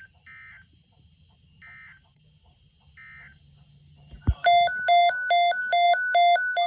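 Short bursts of emergency-alert data tones, as at the close of a NOAA Weather Radio message. About four seconds in there is a click, then a loud electronic alert tone starts, switching between two pitches two to three times a second.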